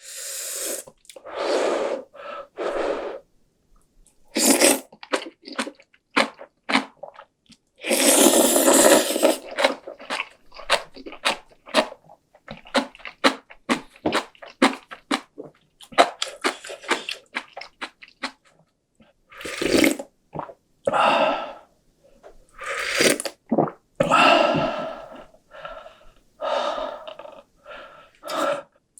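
Close-up eating sounds: instant cup noodles slurped in several long noisy pulls, and kimchi chewed with many short crunches and smacking clicks between them.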